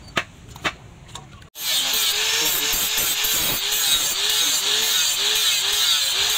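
A few sharp clicks, then about a second and a half in an electric angle grinder grinds the steel blade of a meat cleaver: a loud, steady, hissing grind with a faint tone that swells and fades about twice a second.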